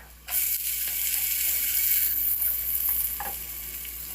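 Carrot and garlic frying in hot oil in a pan: a steady sizzle that starts abruptly a moment in.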